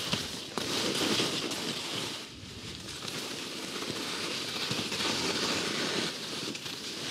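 Line Sakana skis scraping and chattering over hard, crusted, bumpy snow in a continuous crackly rasp that eases briefly about two and a half seconds in.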